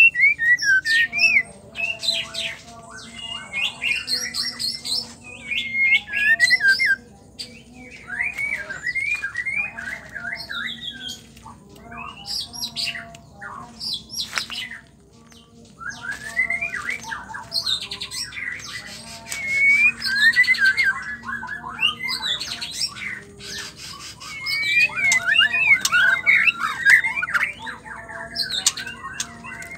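White-rumped shama singing: a fast, varied run of whistled notes that slide up and down, broken by sharp clicking notes, with a few brief pauses.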